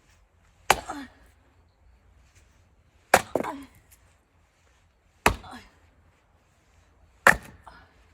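Four axe strikes on oak firewood being split, about two seconds apart, each a sharp crack of steel into wood with a brief splintering tail.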